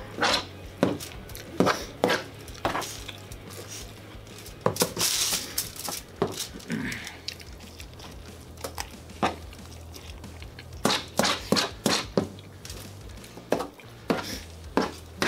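A metal spoon scraping and clicking on aluminium foil, and the foil crinkling as food is pushed and gathered up on it by hand, in irregular clicks and short scrapes.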